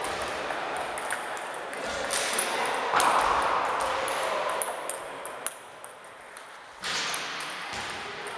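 Table tennis balls clicking off paddles and tables in quick, irregular strikes during rallies, over the echoing murmur of a sports hall.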